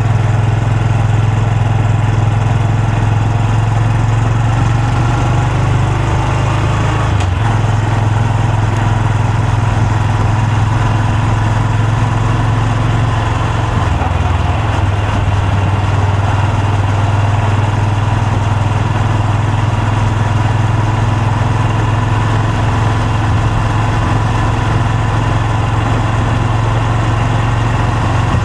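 Honda Super Cub C125's air-cooled 125 cc single-cylinder four-stroke engine running steadily at an even pitch through its exhaust, with a brief click about seven seconds in.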